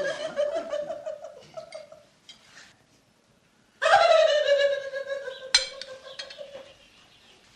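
A woman laughing in a high voice, in two long bouts with a short pause between them. A sharp click comes about halfway through the second bout.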